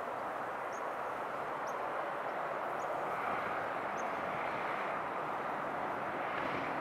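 Large jet airliner's engines at takeoff power, a steady, even rush of jet noise with a low hum coming in near the end.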